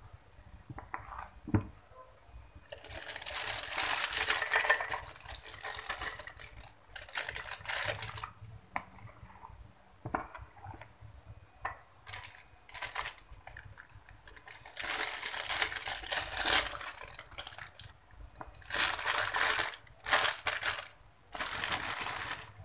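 Thin plastic piping bag crinkling, with a silicone spatula scraping thick cake batter off a plastic bowl and into the bag, in repeated bursts of one to three seconds.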